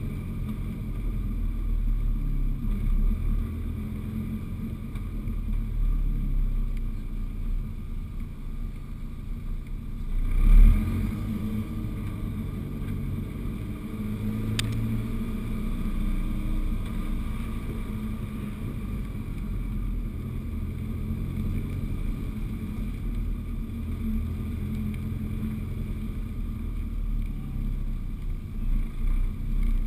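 Dodge SRT-4's turbocharged 2.4-litre four-cylinder running steadily at low speed as the car creeps along, heard from outside the car by the wheel. There is a brief louder surge about ten seconds in.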